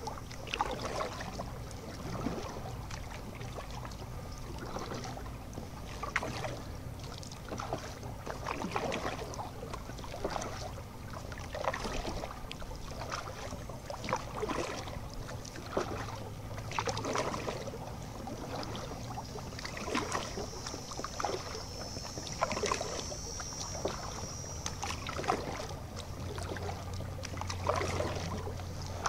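Kayak paddle dipping and pulling through calm canal water, a splash of water off the blade about every second.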